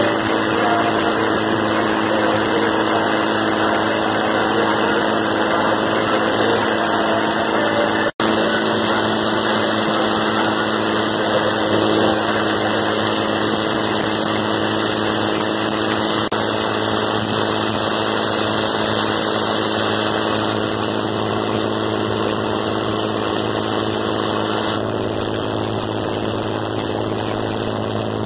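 Wooden fishing boat's inboard engine running steadily under way, with water and wind rushing past. The sound cuts out for an instant about eight seconds in.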